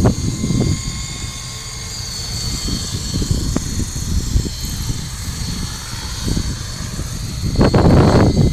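Electric coaxial RC model helicopter with two contra-rotating three-blade rotors and a brushless motor in flight: a steady high whine from the motor and gears over the chop of the rotors. Low rumbling gusts swell at the start and again near the end.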